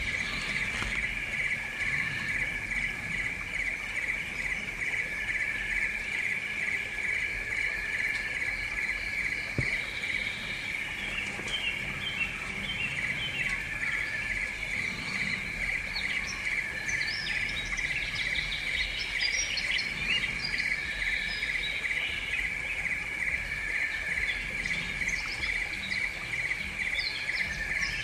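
Steady, evenly pulsing insect trill, with scattered bird chirps joining from about a third of the way in.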